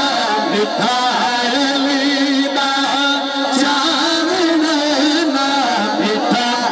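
A man's amplified solo singing of a devotional naat, in long, wavering held notes with ornamented turns.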